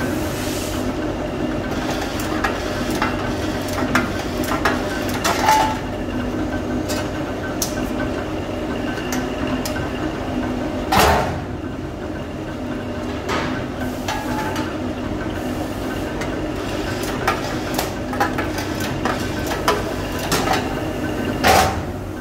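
Steady hum of workshop machinery, broken by scattered sharp metallic knocks and clanks of sheet-steel parts, the loudest about 11 s in and near the end.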